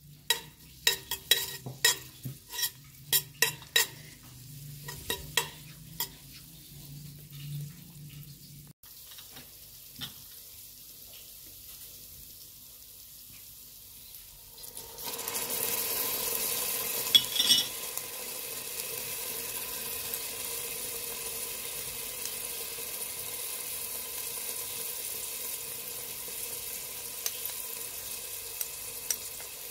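A spoon stirring and clicking against a stainless steel pot, a quick run of taps. About halfway through, raw chicken breast goes into the hot oil and a steady sizzle starts and keeps going, with a couple of clinks just after it begins.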